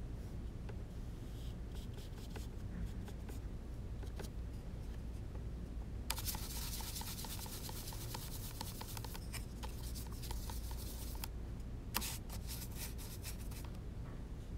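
A flat hake watercolour brush scrubbed back and forth on a palette in quick, regular strokes for about five seconds, starting about six seconds in, as paint is worked into the brush. Before that there are a few faint scratches of the brush, and more follow briefly near the end.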